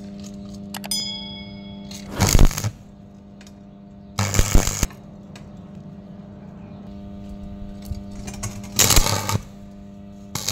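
Electric arc welding tacks on square steel tubing: three short bursts of crackling, each under a second, about two, four and a half and nine seconds in, over a steady hum. A metallic clink with a brief ringing tone about a second in.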